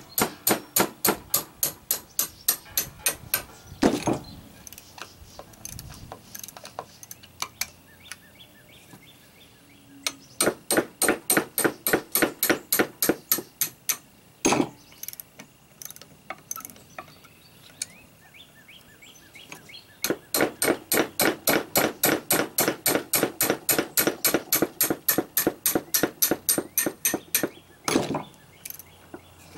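Ratchet wrench and hammer working a stuck bolt on an Evinrude 9.9 outboard's lower unit: three runs of quick, even metallic clicks about six a second, with single heavier knocks in between.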